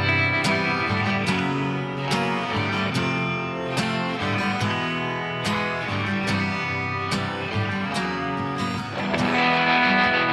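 Fuzz rock song: distorted guitars over a steady drum beat.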